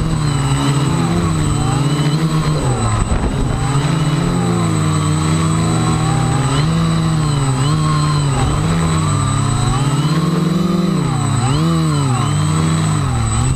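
Electric motors and propellers of a small radio-controlled aircraft whining in flight, their pitch constantly rising and falling as the throttle is worked hard against high wind. A steady high-pitched whine runs underneath.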